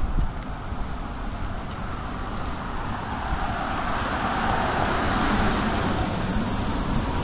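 Car tyres hissing on a wet road as a vehicle draws near, the hiss growing steadily louder from about two seconds in, over a low traffic rumble.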